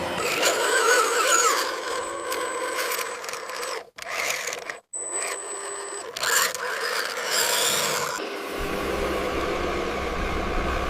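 Scraping and mechanical noise from small RC construction vehicles at work, broken into several short segments with abrupt changes and two brief dropouts a few seconds in.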